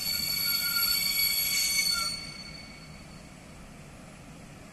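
Passenger train hauled by an EP09 electric locomotive braking into a station platform: a high, steady squeal of wheels and brakes, several shrill tones at once, that stops about two seconds in. A quieter steady background noise remains after it.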